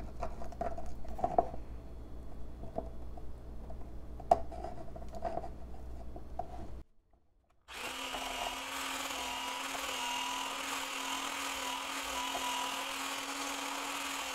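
A spatula scraping and knocking around the inside of a plastic container, working hardened body butter loose. After a brief break, a handheld immersion blender runs steadily for about seven seconds whipping the body butter, then winds down as it is switched off near the end.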